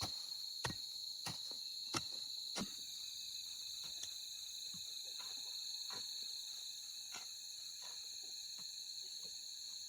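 Steady high-pitched chorus of crickets or similar insects, with a series of sharp knocks about every two-thirds of a second over the first few seconds, then fainter, sparser knocks.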